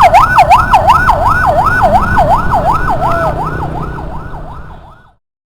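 Ambulance siren wailing in a fast rise and fall, about two and a half sweeps a second, over a low rumble of traffic. It fades over the last two seconds and cuts off about five seconds in.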